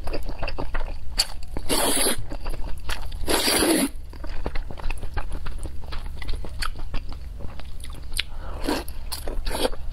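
A person slurping noodles from spicy soup, with two long slurps about two and three and a half seconds in and shorter ones near the end, and wet chewing and mouth clicks between them.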